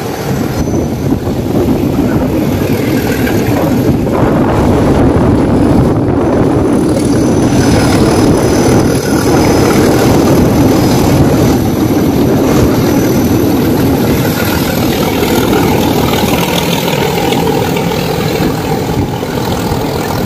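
Nilgiri Mountain Railway train, hauled by a diesel locomotive, running along the line: a steady, dense engine and rail noise that grows a little louder about two seconds in.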